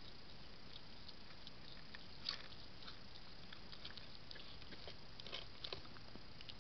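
A hedgehog eating at a feeding station: small scattered clicks and crunches of chewing, with a louder one about two seconds in and a cluster around five seconds, over the camera's steady hiss.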